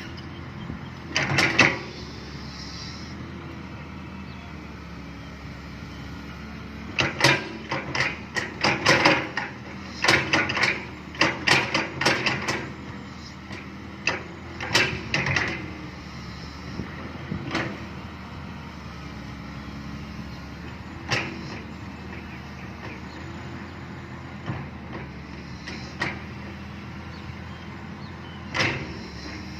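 Excavator's diesel engine running steadily, with sharp clanks and knocks from the machine's work: a few at first, many in a dense run from about seven to thirteen seconds in, then scattered ones.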